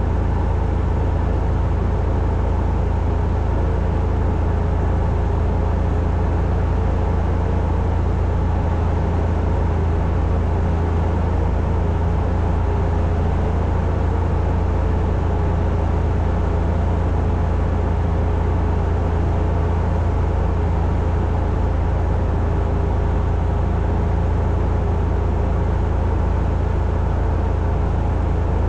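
Cessna 172's piston engine and propeller running at a steady setting, a continuous deep drone with a steady hum above it, as heard inside the cabin.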